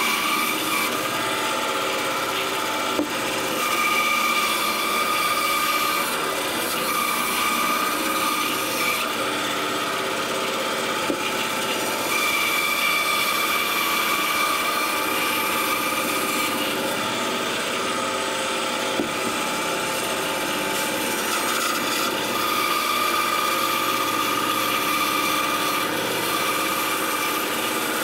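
Bandsaw cutting through a wooden shoe-last blank: a steady rasp of the blade in the wood with a whine that comes and goes as the blade bites.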